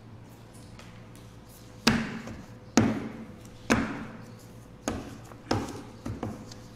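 Six sharp knocks on the tabletop, about a second apart, each with a short ringing tail; the first three are the loudest.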